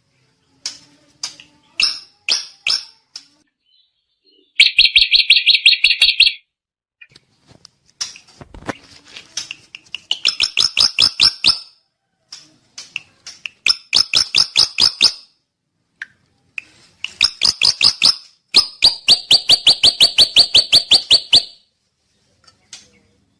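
Drongo (srigunting) calling: bursts of rapid, evenly repeated high chattering notes, about eight a second, each burst lasting one to three seconds, with scattered single notes between. The longest burst comes near the end.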